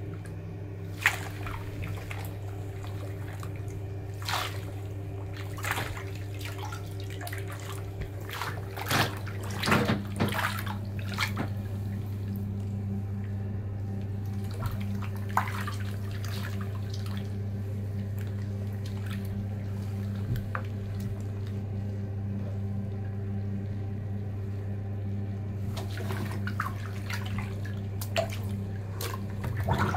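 Bathwater sloshing and splashing as feet in wet canvas sneakers move through a bubble bath, with scattered splashes that come thickest about ten seconds in and again near the end. A steady low hum runs underneath.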